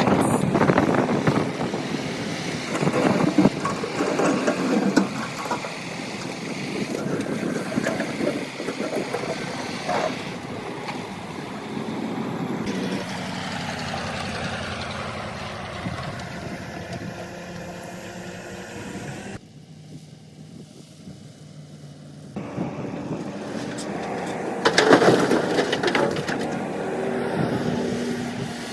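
Hydraulic excavator working in rock: its diesel engine runs under load while the bucket scrapes and knocks against stone, with several sharp knocks and a quieter stretch partway through.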